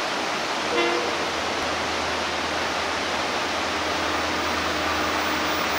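Steady rushing background noise under the low rumble of a TCDD DE33000 diesel-electric locomotive hauling a freight train, still inside the tunnel and approaching. A short tone sounds about a second in.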